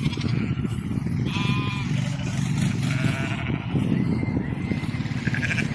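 A flock of sheep bleating, several separate calls a second or so apart, over a steady low noise.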